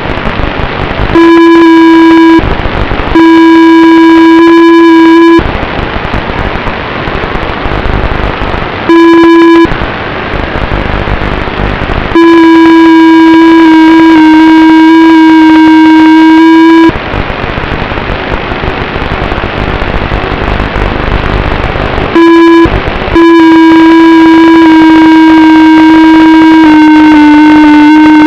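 FPV drone's brushless motors whining in flight, heard through an overloaded onboard microphone: a loud, distorted, buzzy steady tone that cuts in and out abruptly with the throttle, with a rushing hiss of propeller wash and wind in between.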